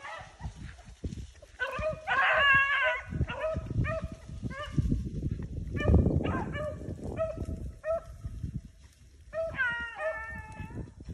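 Beagles baying on a rabbit's trail: repeated short chop barks with a few longer drawn-out bawls near the end, over low rumbling noise on the microphone.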